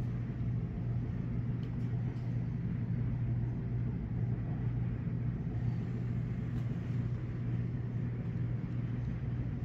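Steady low rumbling hum, with a few faint clicks over it.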